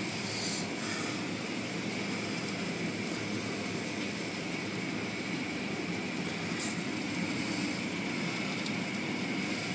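Automatic car wash running, heard from inside a car: a steady rush of water spray and spinning cloth brushes, with a faint steady high-pitched tone.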